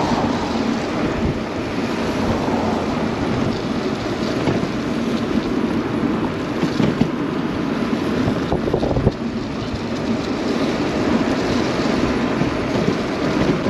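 Steady wind rumble on the microphone of a camera on a moving electric bike, over road noise from riding in traffic.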